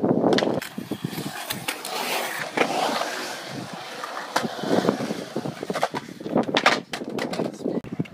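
Skateboard wheels rolling over concrete, with sharp clacks and knocks of boards striking the concrete several times.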